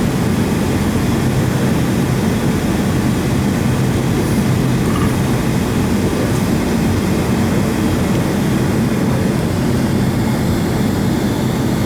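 Steady low drone in the passenger cabin of a Boeing 757 taxiing on the ground, the engines and air system running.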